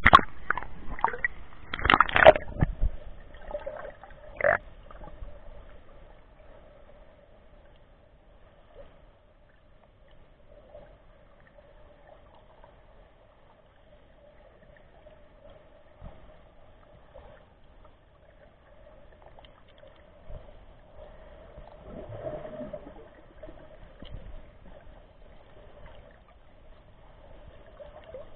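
Seawater splashing and sloshing around a camera at the surface, with several splashes in the first few seconds, the loudest about two seconds in. The camera then stays underwater: muffled, quiet water sound with a faint steady hum and a brief swell of water noise a little past twenty seconds.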